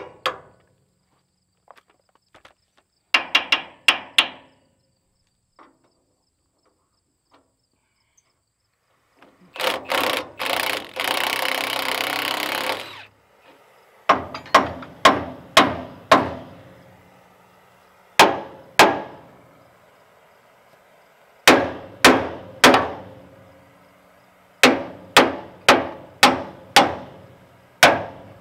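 A cordless impact wrench hammers at a rusted fastener on the truck's tow hook, once briefly and then for about three seconds. It is followed by a hammer striking the steel hook mount again and again to knock it loose, the blows coming in groups of a few with pauses between, each ringing briefly.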